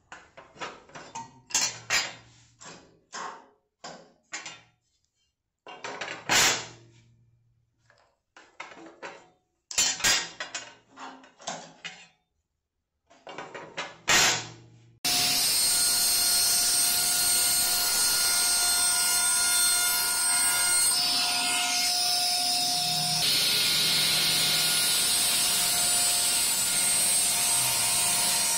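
Scattered light clicks and taps of handling at the saw table, then, about halfway through, a Delta Unisaw table saw sets in abruptly and runs steadily, cutting a wooden board.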